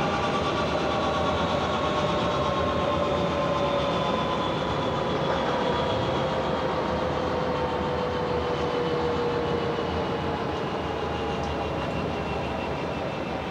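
Antonov An-12's Ivchenko AI-20 turboprop engines winding down after shutdown: a turbine whine of several tones sliding slowly lower over a steady rumble, gradually getting quieter. The shutdown follows a failed start of engine #3.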